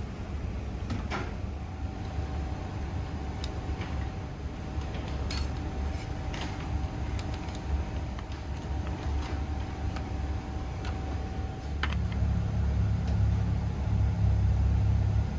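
A steady low rumble with a faint held tone, scattered light clicks and taps over it; the rumble grows louder about twelve seconds in.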